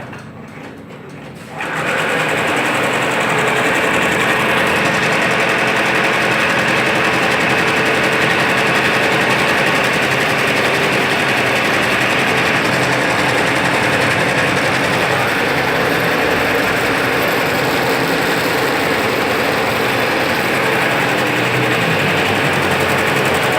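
Tajima two-head, nine-colour computerized embroidery machine starting up suddenly about a second and a half in, then stitching steadily at speed.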